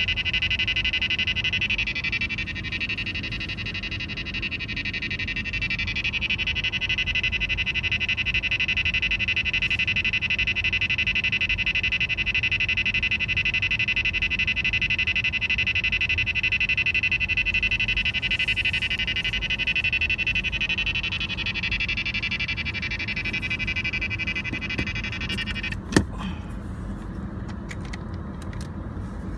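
Uniden R3 radar detector sounding its K-band alert, a fast, steady beeping tone, set off by a car's 24 GHz blind-spot monitoring sensors. A low engine rumble runs underneath; near the end comes a knock and the alert stops.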